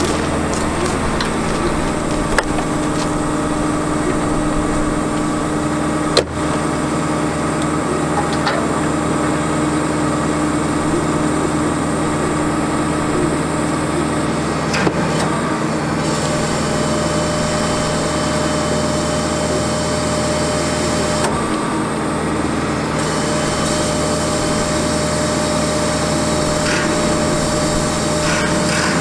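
The 6.4L Power Stroke V8 diesel of a 2008 Ford F450 bucket truck running steadily to drive the hydraulics of the ETI articulating boom, with a steady whine that shifts higher about halfway through. A sharp knock comes about six seconds in and another near the middle.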